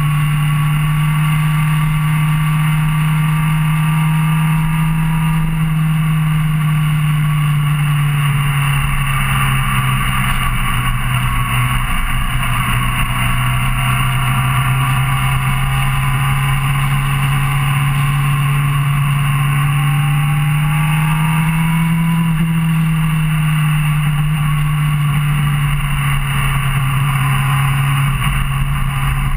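Suzuki GSR600's inline-four engine running at a steady cruising speed, heard close up from a camera on the bike, with wind and road rush. The engine pitch holds nearly even, with a brief dip about twelve seconds in and a slight rise around twenty seconds.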